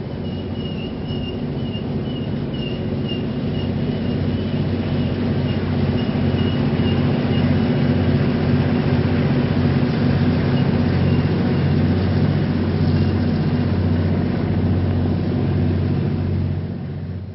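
N scale model freight train running across a 3D-printed plastic truss bridge: a steady low rumbling hum that grows louder over the first several seconds. A faint high whine runs through the first few seconds, and the sound fades away near the end.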